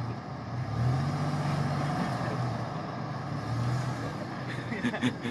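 Lifted pickup truck's engine pulling at low speed as the truck crawls up a dirt mound, revving up about a second in and then holding steady. A few sharp knocks near the end.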